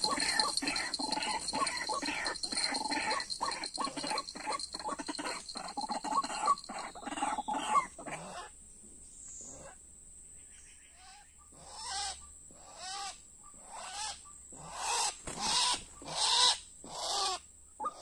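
White-breasted waterhen calls: a fast run of repeated calls, several a second, breaks off about eight seconds in. After a quiet spell, single calls come back roughly once a second, growing louder toward the end.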